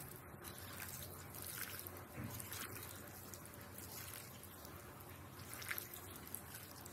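Faint wet squishing of a bare hand mixing raw fish pieces with chopped onion, green chilli, oil and spice paste on a plate, with a few small irregular squelches.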